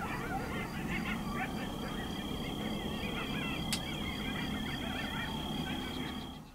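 A pack of coyotes yipping and howling together in a chorus of many overlapping, wavering yelps. A steady high tone joins about two seconds in and holds until near the end, and a single sharp click sounds near the middle.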